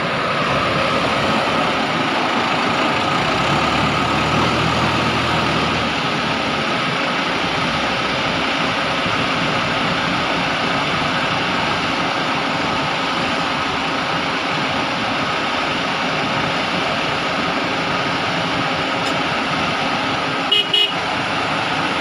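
Diesel engine of a JCB backhoe loader running steadily, with two short horn toots near the end.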